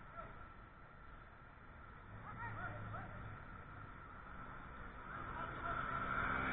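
Faint distant voices of players calling out a few times about two seconds in, over a steady hum, with the background noise growing louder near the end.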